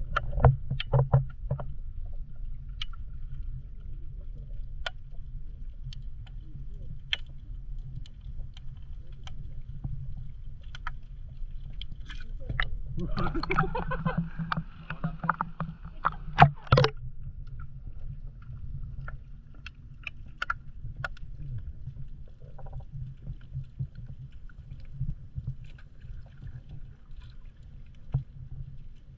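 Water moving against a camera held at or just under the surface, heard as a low, muffled rumble with many scattered sharp clicks and pops. A muffled voice comes through for a few seconds about halfway through.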